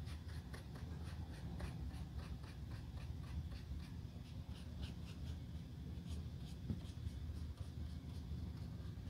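Small paintbrush dabbing and stroking paint onto the smooth leather of a white sneaker: a run of short, light brush strokes, about three a second, over a steady low hum.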